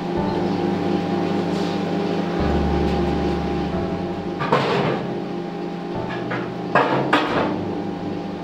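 A few sharp knocks, one about four and a half seconds in and two close together near seven seconds, over a steady backing of music whose low notes change every second or two.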